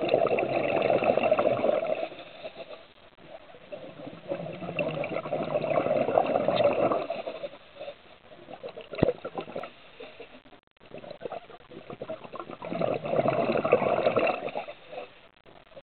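Scuba regulator exhaust heard underwater: three long bursts of bubbling exhalation about six seconds apart, with quieter stretches between them. A single sharp click about nine seconds in.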